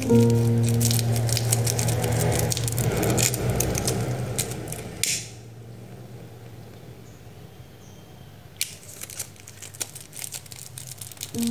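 Crinkling and light crackling of a fabric flower petal being handled and singed with a lighter flame. The sound is busy for about five seconds, quieter for a few seconds, then picks up again near the end.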